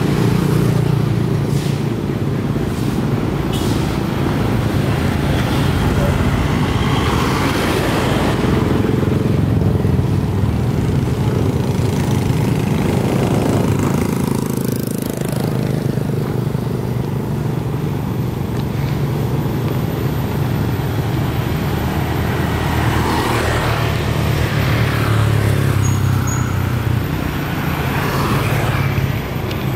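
Roadside traffic: a steady low rumble of motorcycles and scooters, with several passing close by one after another.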